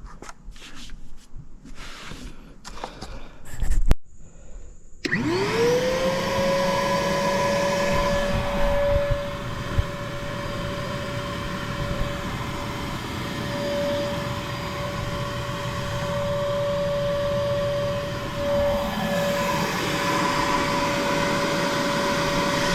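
A wet/dry shop vacuum switched on after some clattering and a knock, its motor winding up to a steady whine with a rush of air, sucking out an HVAC condensate drain line and pan that had been clogged.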